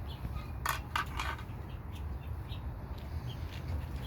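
A few short clicks and scrapes of a plastic-and-metal truck door handle being handled just after it has been slid out of the door, bunched together about a second in, over a steady low background rumble with faint bird chirps.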